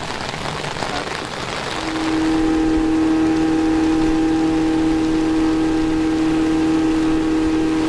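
Mercury outboard motor on a small aluminium boat comes up to speed about two seconds in and runs at a steady pitch, over heavy rain hitting the river.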